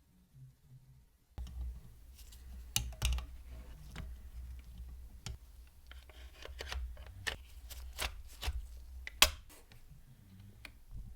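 Irregular light clicks and taps of small parts being handled, starting abruptly about a second and a half in, with one sharper click near the end.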